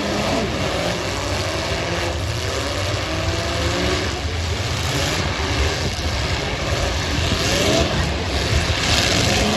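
Several V8 demolition-derby car engines running and revving, their pitch rising and falling and overlapping over a steady low rumble.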